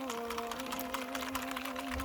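Background music with held notes that slide down a little at the start and then stay level, over a steady fine crackle.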